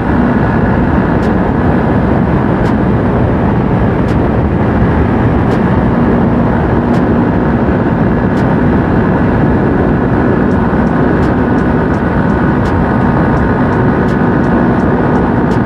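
Yezdi Roadster motorcycle at speed, heard from the rider: a steady roar of wind and engine that holds level throughout.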